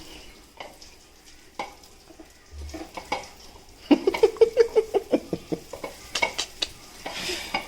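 Fish pieces being mixed by hand in a wet masala paste: faint squelches at first, then a quick, busy run of wet slaps and squishes from about four seconds in.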